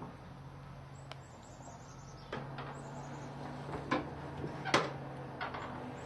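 Hand-worked double-action bellows of a coal forge, its wooden boards and valve flaps knocking and clacking irregularly, about seven times, over a low steady hum.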